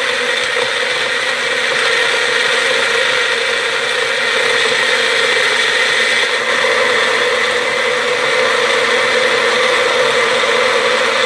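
Magic Bullet personal blender motor running steadily at full speed, blending banana, apple and ice into a smoothie, with a high, even motor whine.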